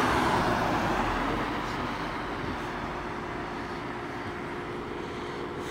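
A car passing close by on the road, its tyre and engine noise fading away over the first couple of seconds, leaving a quieter steady hum.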